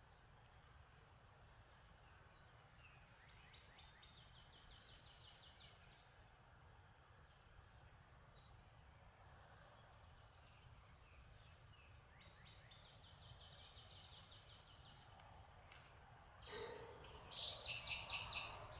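Faint songbirds singing in the open: a short trilled phrase of quickly repeated high notes about three seconds in and again about twelve seconds in. Then, near the end, a louder burst of chirps and high notes with a rush of noise under it.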